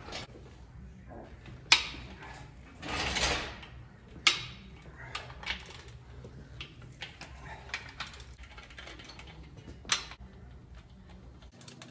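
A hand socket wrench ratcheting on bolts in a bare 440 big-block engine, with many small clicks and a few sharp metal clanks, the loudest about ten seconds in.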